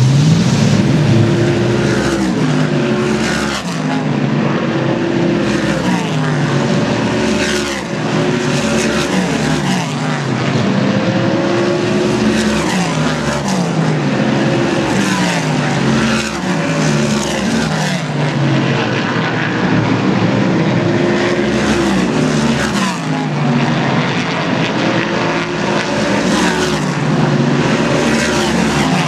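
Race car engines lapping an oval track in practice, several cars at once. Their pitch rises as they accelerate and drops as they lift off, over and over, as the cars come past.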